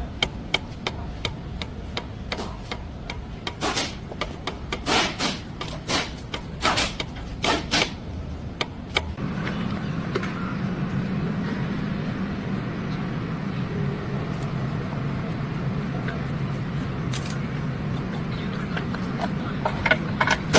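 Irregular knocks and clicks for the first several seconds, then a vehicle's engine running steadily from about nine seconds in.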